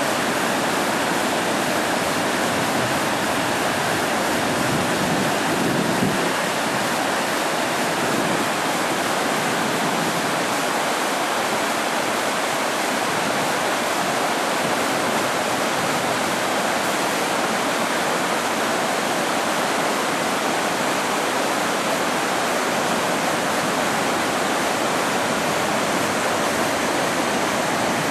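Whitewater rapids and a waterfall rushing, a steady, unbroken roar of water.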